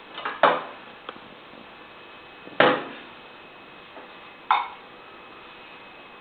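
Three sharp clanks, each with a short ringing decay, about two seconds apart, like metal parts of a grinder being handled or set down. The grinder is not running.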